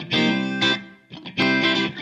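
Background music led by guitar: chords struck and held about half a second each, with short gaps between them.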